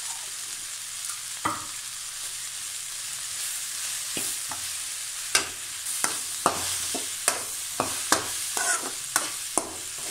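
Sliced okra sizzling in oil in a metal kadai, with a metal spatula scraping and knocking against the pan as it is stirred. The spatula strokes come one after another through the second half.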